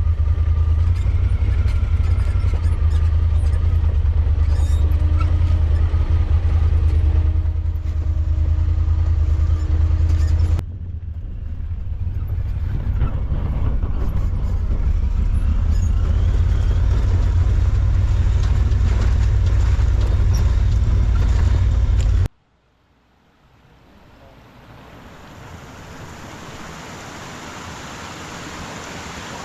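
Vehicle engine running with a steady low drone, broken off by two abrupt cuts about ten and twenty-two seconds in; after the second cut the engine is gone and only a faint hiss remains, growing louder toward the end.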